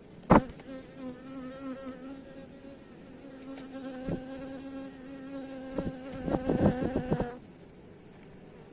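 Honeybee buzzing in flight: one steady, slightly wavering hum that stops suddenly about seven seconds in. A sharp knock comes just as the buzz starts, and a quick cluster of knocks near the end.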